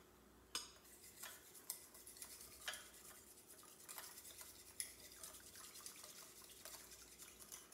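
Spoon stirring salt into warm water in a ceramic bowl to dissolve it: faint, scattered clinks and scrapes against the bowl.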